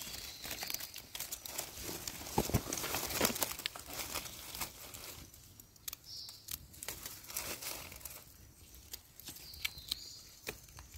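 Dry leaf litter crinkling and rustling, with many small clicks and snaps, as hands work through the leaves and a knife cuts and trims wild mushroom stems.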